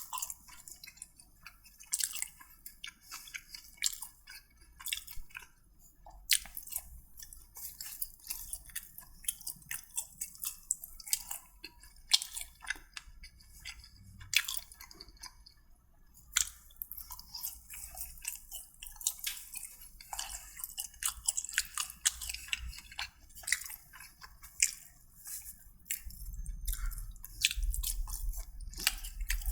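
A person eating close to the microphone: chewing with many short wet mouth clicks and smacks throughout. A low rumble comes in near the end.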